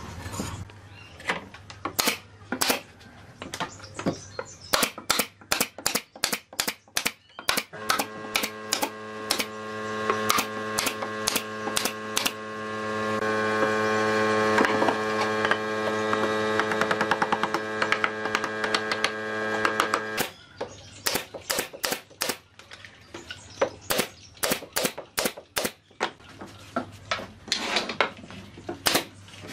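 Workshop woodworking sounds: irregular sharp knocks and taps of tools on wood throughout. An electric power tool's motor runs steadily from about a quarter of the way in, grows slightly louder, and cuts off about two-thirds through. A low electrical hum sits underneath.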